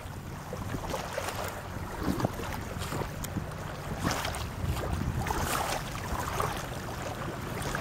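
Light recreational hovercraft running across open water, its engine and ducted fan giving a steady low hum under a hiss of spray, with wind rumbling on the microphone.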